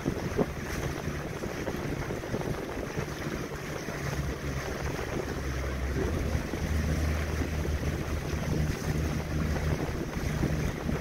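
Outboard motor of an inflatable boat running steadily under way, a low hum under the rush of water against the hull and wind on the microphone.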